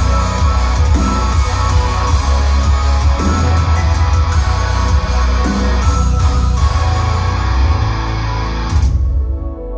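Loud guitar-driven rock music with heavy bass, played through Revel M16 bookshelf speakers driven by a Vincent SP-331 power amp with tubes on its input side, with no subwoofer. The song stops abruptly about nine seconds in, leaving a quiet low tone.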